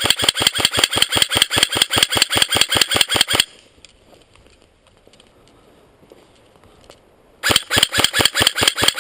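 G&G blowback AK47 airsoft rifle firing on full auto at about eight shots a second: a burst of about three and a half seconds, then after a pause of about four seconds a second burst near the end.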